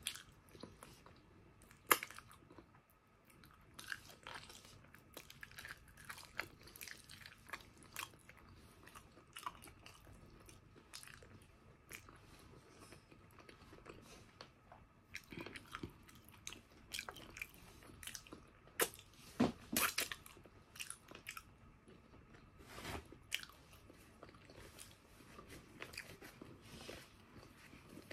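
Close-miked chewing and biting of braised pork trotter, with irregular wet clicks and crunches. A few louder ones come about two seconds in and again around twenty seconds in.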